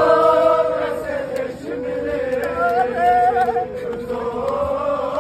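A group of male mourners chanting a Shia mourning lament (noha) together, several voices holding long, wavering notes.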